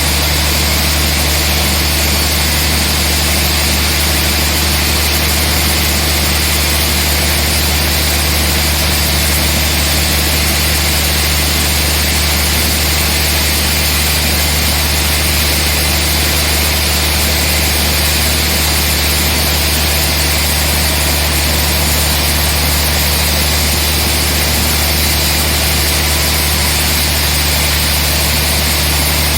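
Sawmill machinery running steadily: a constant low hum with a high whine above it, with no change in pitch or level.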